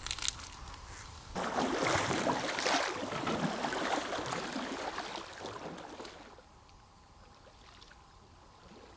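Kayak paddle working the water, splashing and dripping for about five seconds before fading. A few light knocks come just before the splashing.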